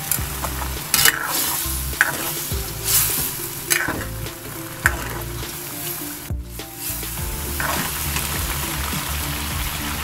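Food sizzling in a hot wok while a metal spatula or ladle stirs it, with several sharp scrapes and knocks of metal on the wok over the first five seconds. The sound drops out for a moment about six seconds in.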